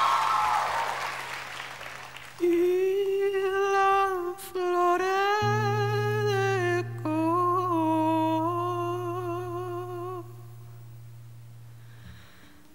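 Crowd cheering dies away, then a male singer hums a slow wordless melody of long held notes into a microphone. A low steady note is held beneath it from about five seconds in. The humming stops about ten seconds in, leaving the low note alone for a moment.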